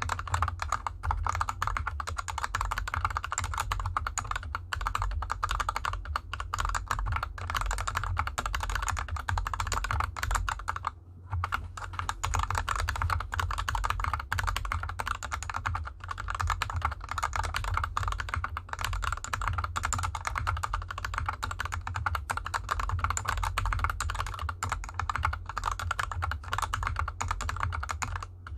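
Continuous typing on a GK64X 60% mechanical keyboard with Gateron Yellow linear switches lubed with Krytox 205g0 and DSA-profile keycaps, the board on a desk mat over felt fabric. A dense, steady run of keystroke clacks, with a brief pause about eleven seconds in.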